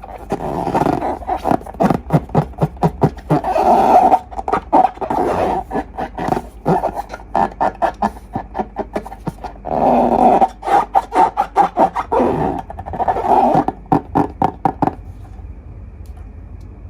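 Slime being squeezed and worked by hand: sticky squelching with rapid crackling pops, which stops about two seconds before the end.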